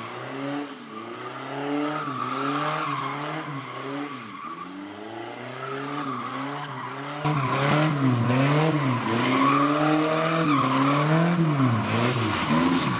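An old sedan's engine revving up and down over and over, with tyres squealing and skidding as the car is spun in donuts on loose ground. The sound gets louder and fuller about seven seconds in.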